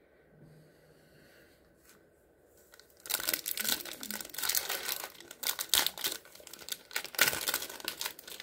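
Foil wrapper of a trading-card pack being crinkled and torn open by hand, starting about three seconds in as a run of sharp, irregular crackles.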